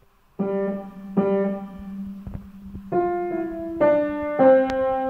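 Piano playing the closing bars of a boogie piece: after a brief pause, a run of separate chords, the last one held and left to ring.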